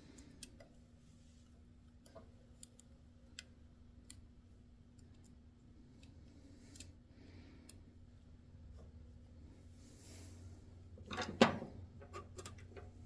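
Screwdriver working a small screw in a Ford tractor's distributor: faint, scattered clicks and scrapes of metal, then a single louder clatter about eleven seconds in.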